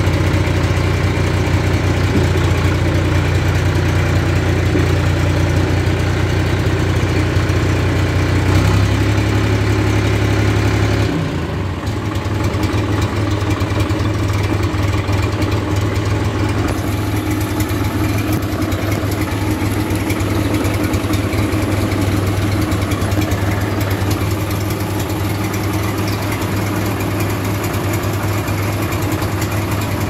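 John Deere 1520 tractor engine running steadily at idle. About nine and again about eleven seconds in its note changes, and it runs a little quieter from then on.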